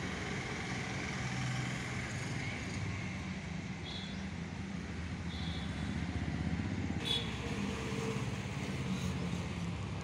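Outdoor road-traffic ambience: a steady rumble of vehicle engines, with a few brief high chirps about four and five seconds in and a sharp click about seven seconds in.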